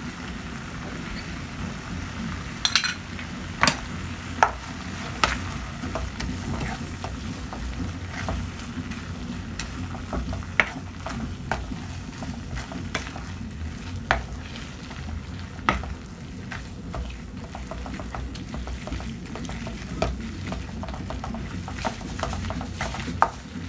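Wooden spoon stirring and scraping thick, sticky caramelized coconut meat and muscovado sugar in an aluminium pan on the heat, with irregular sharp knocks of the spoon against the pan over a steady low hum.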